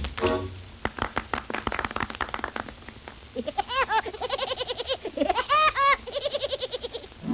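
Rapid tap-dance taps in a fast clatter of clicks, thinning out after about three seconds. Then a run of short, high, warbling chirps that rise and fall in pitch.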